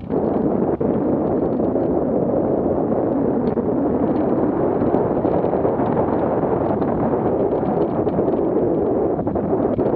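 Wind buffeting the microphone of a camera on a hang glider in flight: a steady, loud rush of airflow.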